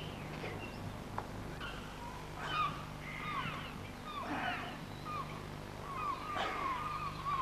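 Many birds calling over one another in short, repeated calls that bend up and down in pitch, thickening from about two seconds in, over a faint steady low hum.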